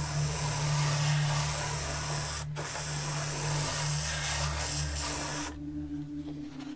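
Airbrush spraying paint in a steady hiss, with a brief break about two and a half seconds in, then shutting off about five and a half seconds in.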